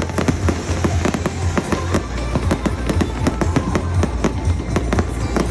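Fireworks display: a dense run of irregular bangs and crackling pops, many each second, with music playing underneath.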